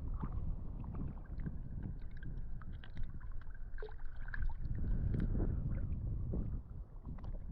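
Water moving and gurgling around a spearfisher's camera, heard as a low, muffled rumble with many small scattered clicks and ticks.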